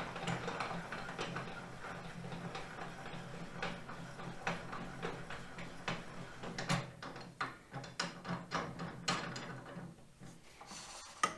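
Irregular metallic clicks, knocks and rattles of hand adjustments on a Ridgid R4520 table saw, with a run of sharper clicks in the second half and one last sharp click near the end.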